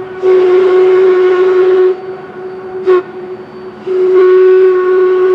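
Steam whistle of Baldwin 0-6-0 steam locomotive #26 blowing three loud blasts: long, short, long.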